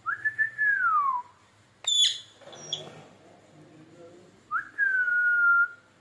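Rose-ringed parakeet (Indian ringneck) whistling twice: first a whistle that rises quickly and then slides down, and about four and a half seconds in a second one that rises and then holds, dipping slowly. About two seconds in, a short shrill squawk.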